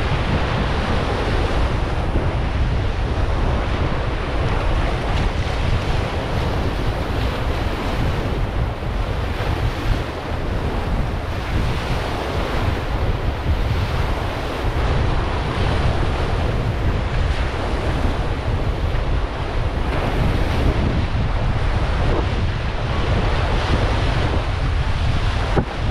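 Wind buffeting the microphone in a steady low rumble over a continuous rush of sea water.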